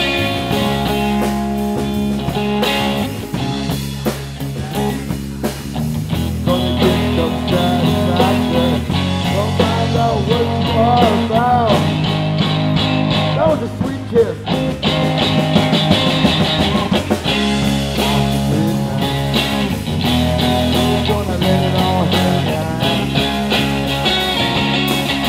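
Live blues-rock band playing an instrumental passage: electric guitar lead with string bends over bass guitar and drums.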